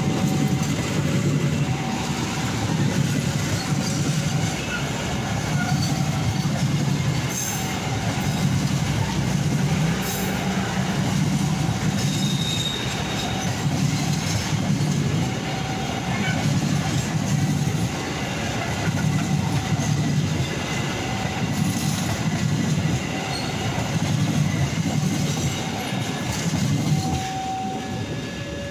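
Joglosemarkerto passenger train's coaches passing close by, the wheels clattering over the rail joints in a rhythm of surges about every second and a half, with short wheel squeals. The sound eases a little near the end as the last car goes by.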